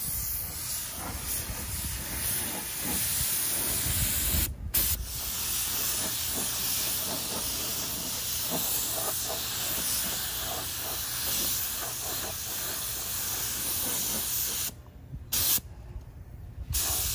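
Gravity-feed paint spray gun hissing as it sprays green paint onto a pedal tractor's body in long trigger pulls. The hiss stops briefly about four and a half seconds in, and again for about two seconds near the end with one short burst between.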